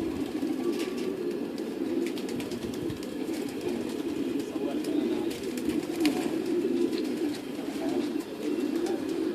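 Many racing pigeons cooing together in a continuous, overlapping chorus, with scattered sharp clicks.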